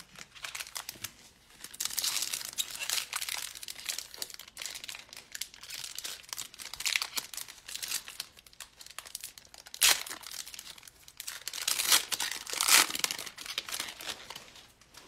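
Foil wrapper of a Donruss football card pack crinkling and tearing as it is ripped open by hand, with the loudest crackles about ten and thirteen seconds in.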